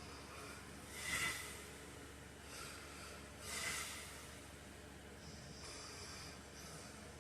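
A sleeping man breathing heavily in his sleep, with airy, hissing breaths. Two louder noisy breaths come about a second in and again past three seconds, with fainter ones between.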